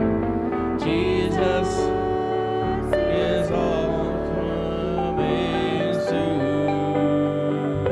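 Church worship music playing: instruments with singing, a slow gospel-style song.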